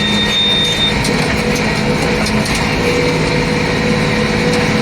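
Tractor engine running steadily while driving a hay baler in the field. A brief high, thin tone sounds in the first second.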